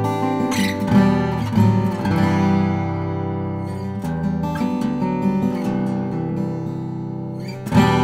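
Nightingale N400F 12-fret steel-string acoustic guitar (ebony back and sides, sinker redwood top, 80/20 bronze strings) played fingerstyle: plucked notes and chords ringing into each other in a flowing solo melody, with a sharper, louder attack near the end.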